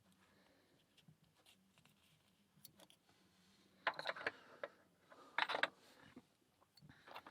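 Small metal lock parts clicking and clattering in two short bursts, about four and five and a half seconds in, with faint ticks before them, as the padlock is taken apart to get its pins out.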